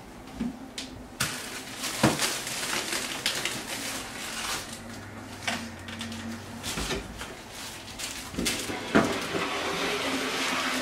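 Knocks and rustling as someone stands on a wooden chair, handling bags hung on hooks. There is a sharp knock about two seconds in and another near the end, when the chair is picked up and moved.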